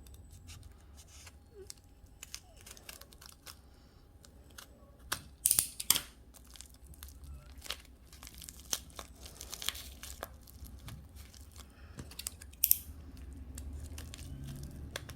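A large shipping parcel's wrapping being cut and torn open, with tearing and crinkling in short bursts and scattered small clicks. The loudest tears come about five and a half seconds in, around nine and a half seconds, and near twelve and a half seconds.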